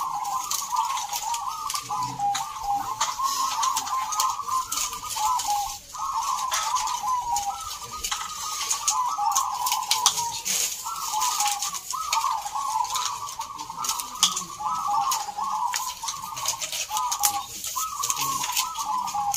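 Several caged zebra doves (perkutut) singing their rapid, warbling cooing song, phrases following one another almost without a break.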